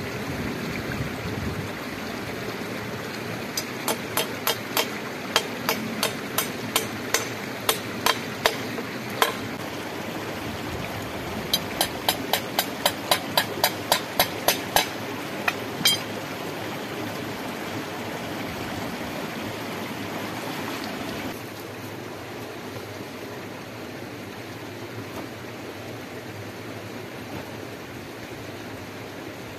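Two runs of sharp hammer blows on wood, about three to four a second, in the first half, as thin sticks are fixed onto a wooden floor frame. A stream runs steadily underneath throughout.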